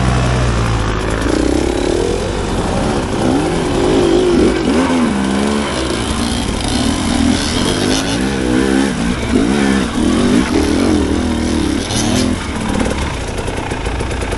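Dirt bike engine revving up and down again and again as the rider works the throttle, over a steady rushing noise.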